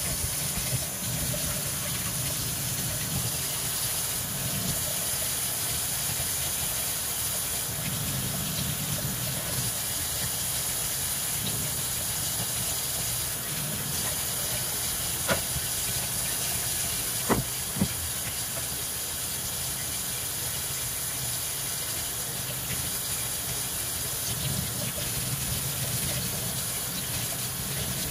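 Kitchen faucet running a steady stream of water onto a small metal block plane part held under it, splashing into the sink as it is rinsed. A few sharp clicks stand out in the middle.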